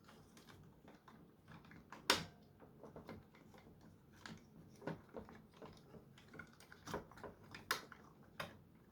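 Irregular light clicks and knocks of plastic parts of a Nerf Gatling blaster being handled and worked apart, the sharpest about two seconds in.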